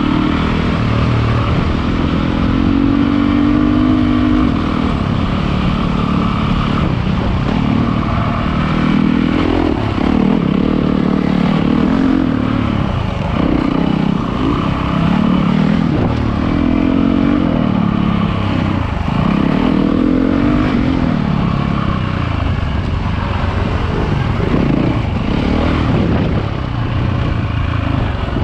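Dirt bike engine heard from on the bike while riding a rough trail, its pitch rising and falling every couple of seconds as the throttle is opened and rolled off.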